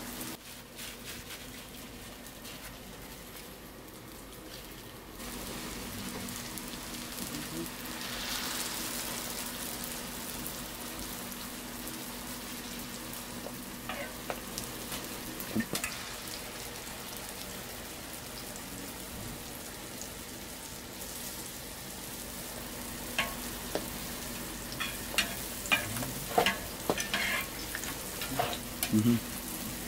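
Hotteok frying in a large flat pan of shallow oil, a steady sizzle over a low hum, growing stronger about eight seconds in. Near the end comes a run of sharp clicks and knocks.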